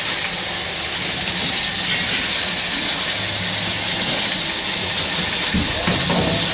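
Steady hissing of high gas burners under karahi pans, mixed with the boiling and sizzling of chicken karahi cooking in the open pans.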